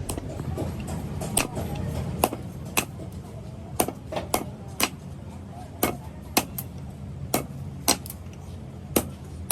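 Sharp hammer blows at an irregular pace of about one to two a second, over a steady low hum.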